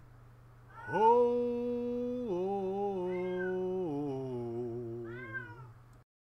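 The closing notes of a gospel song: three long held notes, each lower than the last, then a sudden cut-off about six seconds in.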